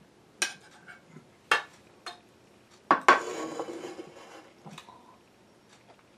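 Metal spoon tapping and scraping against a bowl: a few sharp clinks in the first two seconds, then a louder clink about three seconds in followed by a second or so of scraping.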